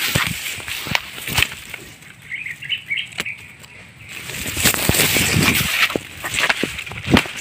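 Leaves, fern fronds and twigs rustling and crackling as someone pushes through dense undergrowth, with sharp snaps and footfalls. The rustling dies down briefly in the middle, when a short high chirping is heard, then picks up again.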